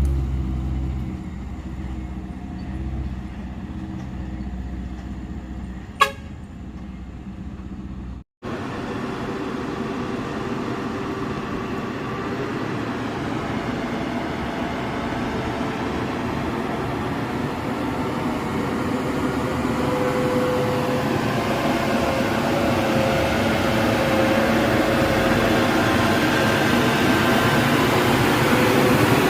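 Heavy truck diesel engine running on a steep climb, with a sharp click about six seconds in. After a brief dropout, a noisier, whining engine sound builds steadily louder.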